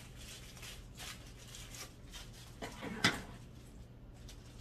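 Light handling sounds of a small zip wallet being picked up and shown: soft rustling with a sharp click about three seconds in.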